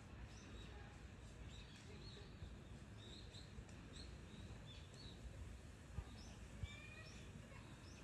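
Faint chirping of small birds over a steady low outdoor background, with two short clicks about six seconds in.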